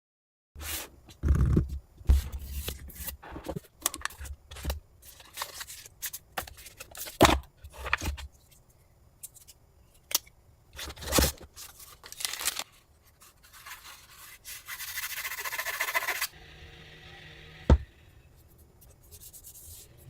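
Handling noise from unboxing a tablet: the box and its packaging scraped, rubbed and knocked in short irregular strokes, then a rustle of about two seconds and a single sharp click.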